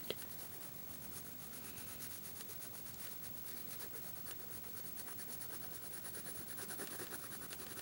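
Pencil colouring on paper: fast, repeated back-and-forth strokes filling in an area, a faint steady scratchy rubbing.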